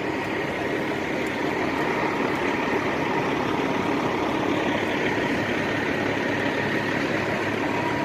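Heavy diesel truck engines running at low speed: a loaded log truck creeping forward across the truck scale, over a semi truck's idle. Steady rumble and hiss, swelling slightly in the middle.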